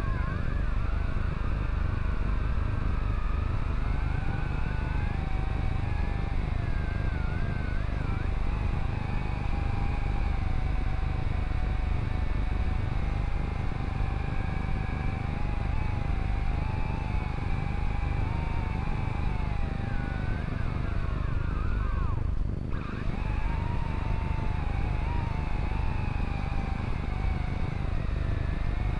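Drone's motors and propellers whining as picked up by its own onboard camera, the pitch wavering up and down with the throttle over a heavy rumble of wind from the fast flight. The sound dips briefly about three-quarters of the way through.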